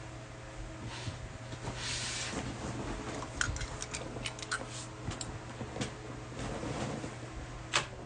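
Handling noise: short rustles and scattered light clicks and taps of things being picked up and set down on a table, over a steady low electrical hum.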